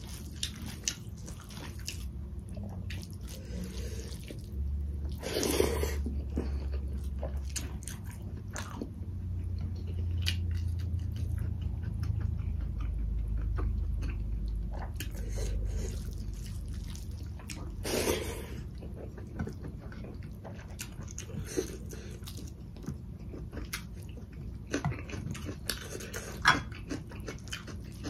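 Close-miked eating sounds: chewing and wet mouth noises, with small clicks as rice, dal and curry are mixed by hand on a plate and eaten with the fingers. Two brief louder noisy sounds come about five and eighteen seconds in.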